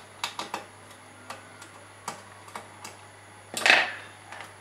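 Small metallic clicks and ticks of a screwdriver working the screw terminals of an amplifier board, then a louder clatter about three and a half seconds in as the screwdriver is set down on the wooden desk.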